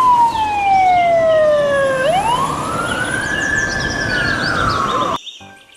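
Fire engine siren wailing: a slow falling tone that sweeps back up about two seconds in, holds, and starts to fall again. It cuts off suddenly near the end.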